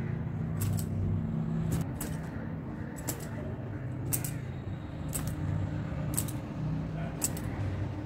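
Metal bangles clinking in short, crisp clicks about once a second as a cotton gamchha towel is swung back and forth to dry long wet hair, over a steady low hum.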